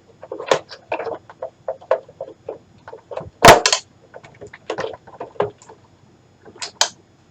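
Plastic clicks and knocks of a projector lamp assembly being handled and fitted back into the projector housing, with one loud sharp snap about three and a half seconds in.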